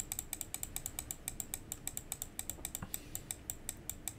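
Computer keyboard keys pressed over and over in a rapid, even series of clicks, several a second: repeated undo keystrokes stepping back through CAD edits.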